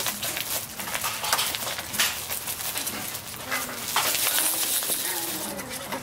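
Cavalier King Charles Spaniel puppies at rough play: short puppy whines and growls over knocks and scuffling as they tug at a plastic stacking toy on a sawdust floor.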